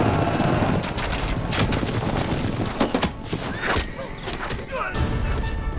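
Battle-scene sound effects: a fast, irregular run of sharp cracks and thuds, with a few short wavering cries over it in the second half.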